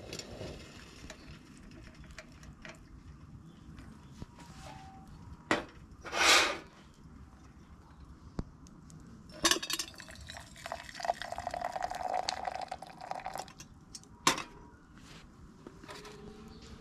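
Liquid being poured for about three seconds, starting some ten seconds in, amid a few sharp knocks and clinks of camp cookware.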